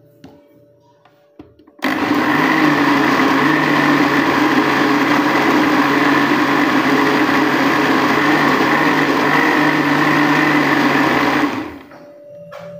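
Electric blender running steadily, grinding a spice paste. It starts a couple of seconds in and cuts off shortly before the end.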